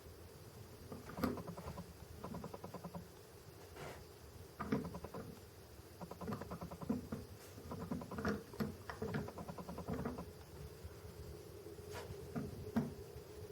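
Light clicks and clattering taps of small diecast metal model counterweight pieces being handled and set down, coming in irregular clusters.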